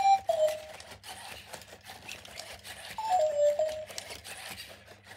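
Toy robot dog giving two short electronic chirps that step down in pitch, one at the start and one about three seconds in, over steady small clicking and whirring from the robot dogs' motors and plastic joints as they move against each other.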